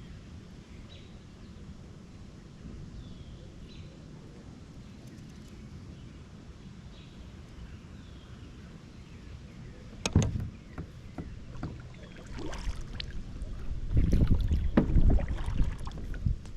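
Kayak on the water: a steady low wind-and-water hiss with faint short bird chirps. A sharp knock comes about ten seconds in, then a run of loud knocks and clatter near the end, gear or paddle striking the kayak.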